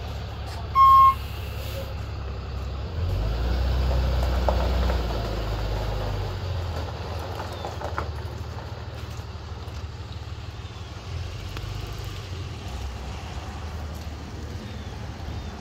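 Loaded rollback tow truck's engine running, with one short, loud beep about a second in. About three seconds in the engine grows louder for a few seconds as the truck pulls away, then eases back to a steadier hum.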